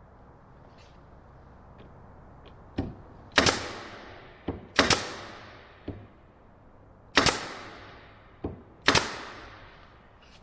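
Fasteners being driven into the wooden boards of a box. There are four loud, sharp cracks, each ringing out for about a second, and most are preceded by a lighter tap a fraction of a second before.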